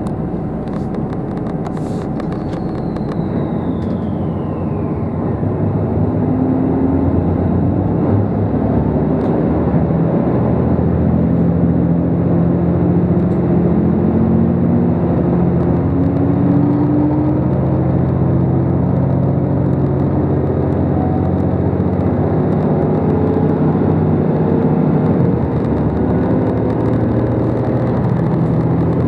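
JR Shikoku 2700 series diesel multiple unit pulling away from a station, heard from inside the carriage: the diesel engines under the floor run up under load as the train accelerates, their note rising several times over.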